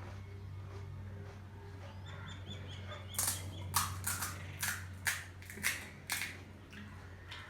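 Crisp snack food being bitten and chewed: a run of about eight sharp crunches, a few tenths of a second apart, through the middle. A bird chirps quickly a few times just before the crunching starts, over a steady low hum.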